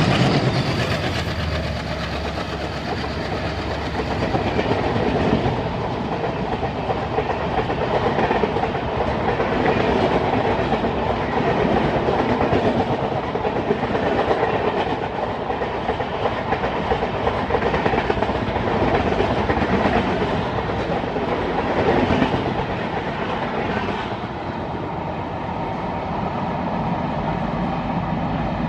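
A diesel-hauled express train passing close by at speed. The locomotive goes by in the first second, then a long rake of coaches keeps up a continuous rumble and clatter of wheels on rail, easing slightly near the end as the last coaches pass.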